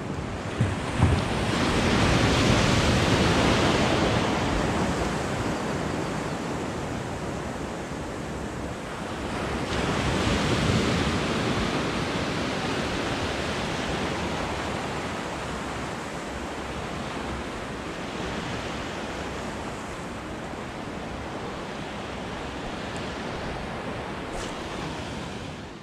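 Small sea waves breaking and washing up a sandy beach, the surf swelling louder twice, with a little wind on the microphone. Two brief knocks about a second in.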